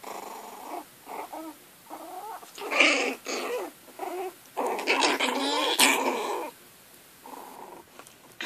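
Chihuahua puppies growling and yipping in short bursts as they play-fight, loudest in a long stretch past the middle.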